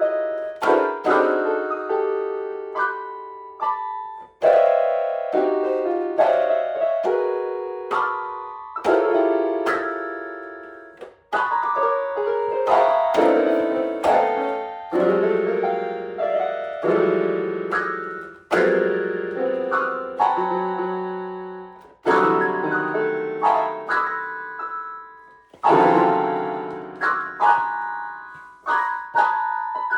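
Piano music: single notes and chords struck one after another, each ringing and fading away.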